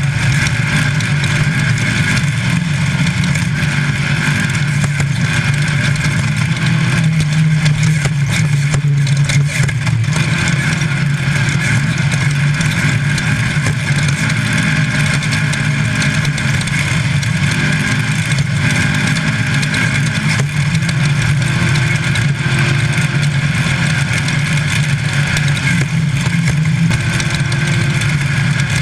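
Engine of a VW-based Class 5 Baja Bug running hard and steady at racing speed, heard from inside the car, over an even rush of wind and tyre noise.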